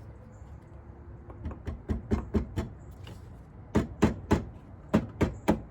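Sharp knocks from hand-tool work on the car's underside, in quick groups of three to six at about four a second, starting about a second and a half in.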